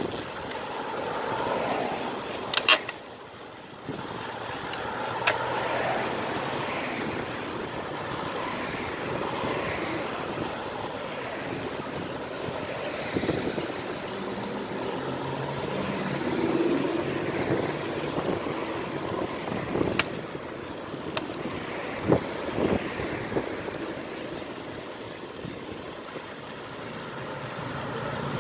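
Wind rushing over the microphone and tyre noise on asphalt while riding a road bike, with a few sharp clicks.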